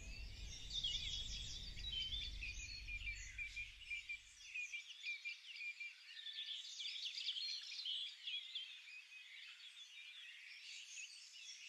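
A chorus of wild birds chirping and trilling, many short calls overlapping. A low rumble fades away in the first few seconds.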